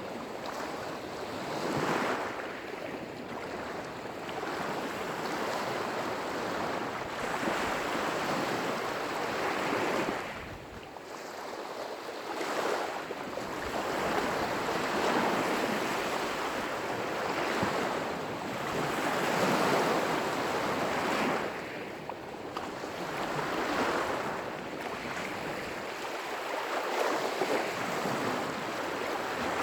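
Lake waves breaking and washing on the shore, in surges that swell and ease every few seconds.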